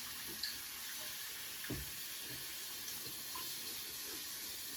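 Chicken deep frying in vegetable oil: a steady sizzle with a few small pops.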